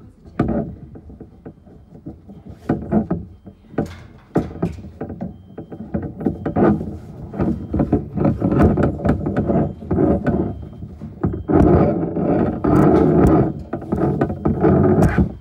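Tent fabric rustling and fibreglass tent poles knocking and scraping close to the microphone as a pole is worked into the tent. There are many sharp clicks and knocks over a dense rustle, growing busier from about six seconds in and loudest near the end, then cutting off suddenly.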